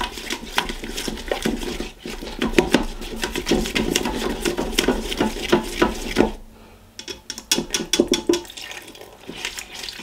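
A plastic-coated whisk beating a roux and milk into a white sauce in a cooking pot: quick, wet scraping and tapping against the pot. There is a brief pause about six seconds in, then the whisking starts again.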